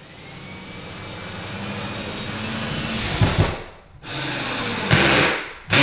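Cordless drill driving a 2-inch drywall screw through the sheet-metal back of a baseboard heater into a wall stud. The drill runs steadily and gets louder for about three seconds, then gives a couple of sharp knocks. After a short pause it runs again in two short loud bursts.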